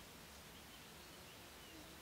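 Near silence: faint outdoor ambience with a few faint, short bird chirps in the distance.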